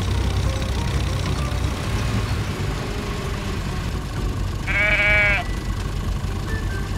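A sheep bleats once about five seconds in, a short wavering cry, over the steady low rumble of a truck engine.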